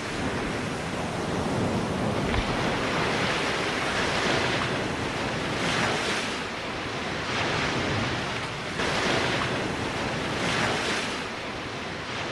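A rushing noise like surf, swelling and easing every second or two.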